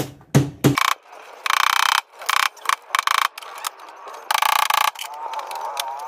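Screwdriver work on a washing machine's metal cabinet while it is taken apart: a few sharp knocks in the first second, then several half-second bursts of fast ratchet-like clicking as screws are worked loose.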